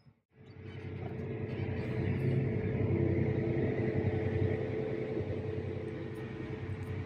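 A farm tractor's diesel engine running steadily with a low rumble. It drops out for a moment right at the start, then swells back up over about two seconds and holds steady.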